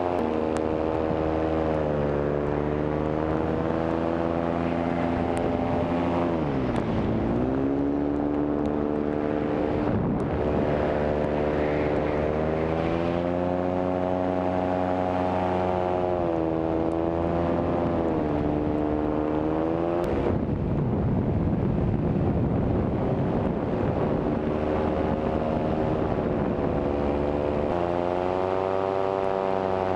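Paramotor engine and propeller running in flight, a steady drone whose pitch shifts with the throttle: it drops sharply about seven seconds in and climbs back, shifts again a few times, turns rougher for a few seconds past the middle, and rises near the end.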